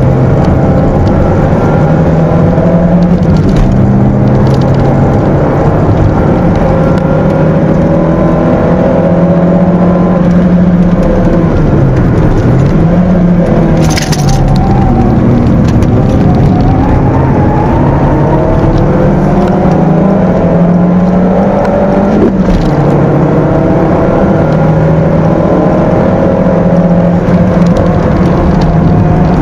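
A Peugeot 206's stock 1.6-litre four-cylinder engine, heard loud from inside the cabin under hard driving, its pitch rising and falling with throttle and gear changes. About halfway through the pitch drops and climbs back, followed by a single sharp click.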